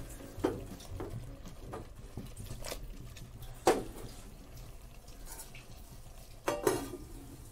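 An earthenware clay pot is swirled and shifted by hand on a gas-stove burner, knocking against the grate a few times, loudest about halfway through. Near the end a steel plate is set on top as a lid with a short double clatter.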